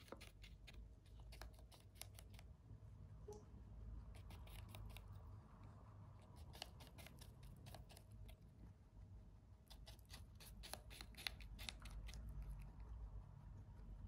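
Rabbit biting and chewing a piece of apple: faint runs of quick, crisp crunches that come and go, busiest in the middle and toward the end.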